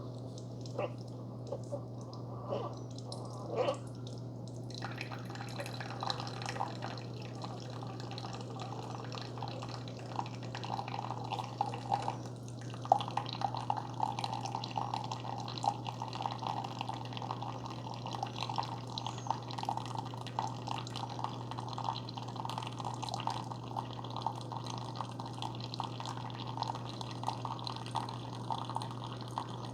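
Keurig K-Supreme Plus Smart single-serve coffee maker brewing a K-Cup on its strong setting. A few short clicks come first, then, from about five seconds in, coffee streams and drips into the cup over a steady low hum.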